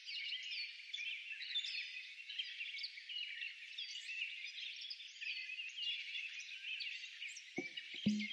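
Many small birds chirping and twittering at once, a dense chorus of short overlapping calls and quick sliding whistles. A few seconds before the end, a steady music beat comes in under the birdsong.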